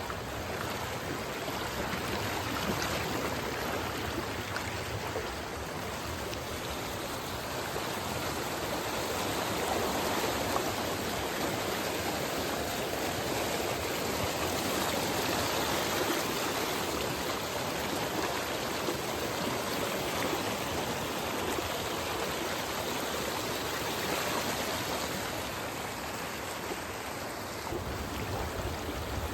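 Water of a stream running steadily, an even rushing and babbling that holds without a break.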